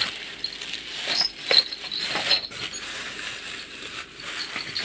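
Rummaging on a cupboard shelf: plastic packaging rustling, with scattered knocks and clicks as things are moved.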